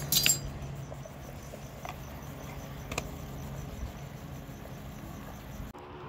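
Crickets chirping steadily, with a few sharp pops from a wood fire burning under a cooking pot, the loudest cluster right at the start and single pops about two and three seconds in, over a low steady hum.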